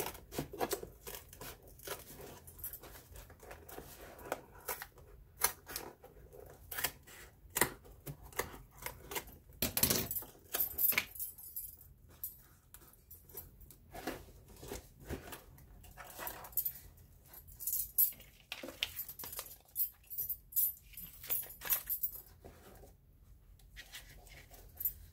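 Paper and card being handled: scissors snipping card, strips rustling and pressed down, in scattered irregular clicks and crinkles, with occasional clinks of metal bangles.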